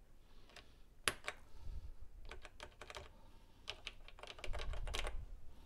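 Typing on the keyboard of a Radio Shack TRS-80 Model 100 portable computer: a few separate key clicks, then a quicker, irregular run of keystrokes from about two seconds in. The keys are being tested just after the T key's switch was repaired.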